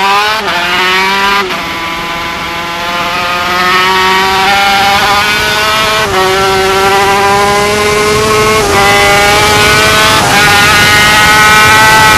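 Yamaha TZ250 two-stroke racing engine at full throttle, heard from a camera on the bike. Its pitch climbs steadily and drops sharply at each of several quick upshifts, over a constant rush of wind.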